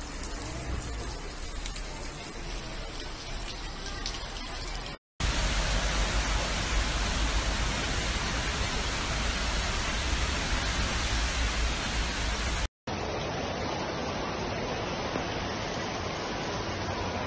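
Steady rushing of floodwater in a flooded street. It comes in three spliced clips divided by two brief silent gaps, and the middle clip is the loudest.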